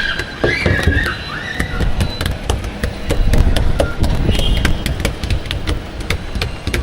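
A run of irregular sharp taps and knocks over a steady low rumble.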